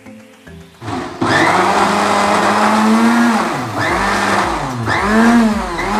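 Electric mixer grinder starting about a second in and running at full speed, grinding boiled beetroot and carrot pieces with coriander and mint leaves into a pulp. Its motor slows and picks up again twice along the way.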